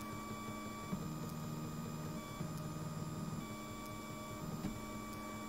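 Printrbot Simple 3D printer's stepper motors whining as the printhead and bed move while printing, the pitch jumping to a new steady tone every second or so as each move begins.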